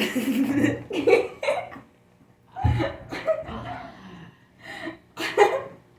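Short breathy vocal outbursts like coughs and laughs, coming in irregular bursts with pauses between them.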